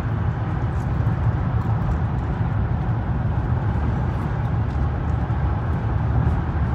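Steady road noise inside a car driving at highway speed: a deep, even rumble of tyres and engine with a fainter rush of wind over it.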